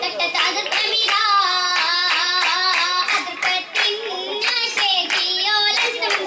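Girls singing an oppana song with many rhythmic hand claps from the group of dancers keeping time, several each second, with the melody moving up and down.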